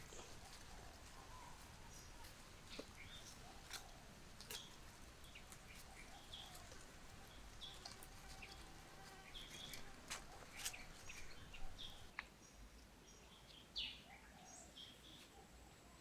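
Faint bird chirps, scattered and irregular, with a few light clicks and a thin high whistle near the end.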